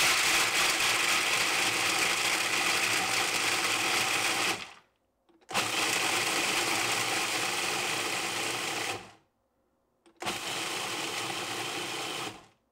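Food processor chopping whole almonds, pulsed in three runs of about four, three and a half and two seconds with short stops between; the last run is quieter as the nuts break down to fine crumbs.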